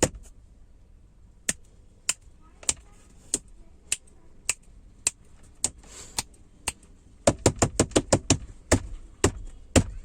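Sharp taps or knocks, one every half second to a second at first, then a quick, irregular run of taps from about seven seconds in.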